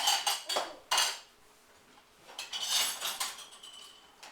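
Cutlery and dishes clattering and clinking in two bouts, one at the start and another about two and a half seconds in, the second ending with a brief ring.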